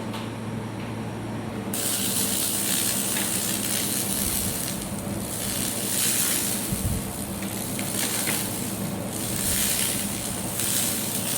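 Handheld pulsed fiber laser cleaner ablating rust from metal: a dense, high crackling hiss that starts about two seconds in and swells and eases, over the machine's steady low hum.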